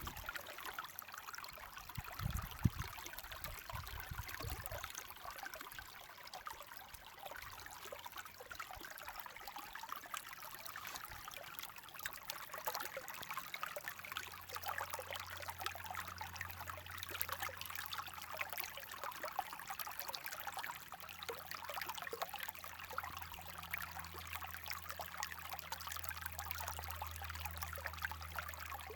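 A small stream of water flowing and trickling with a steady, busy splashing. Low rumbles come a few seconds in, and a steady low hum joins about halfway through.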